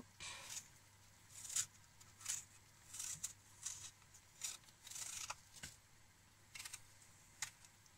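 Vegetable peeler scraping the skin off an apple in short, irregular strokes, about a dozen of them, faint and scratchy.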